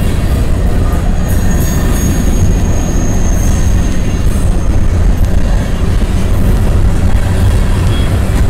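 Freight train of loaded covered hopper cars rolling past close by: a steady, loud rumble of steel wheels on the rails. A thin, high wheel squeal runs from about one to four seconds in.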